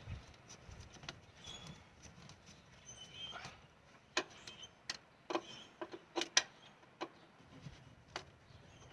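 Faint, irregular clicks and clinks of hand tools against metal as a socket and extension work a spark plug out of a car engine. Most of the clicks fall in the second half, several in quick succession.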